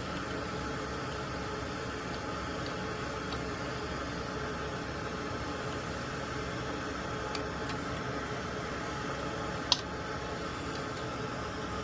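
Steady hum of a small fan running, with a few light clicks of tools on the board, the sharpest near the end.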